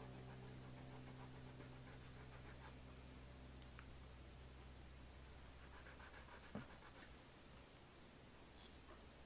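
Faint scratching of a conte stick and fingertips rubbing soft pastel on paper, with a single light tap about six and a half seconds in. The last notes of background music die away over the first few seconds.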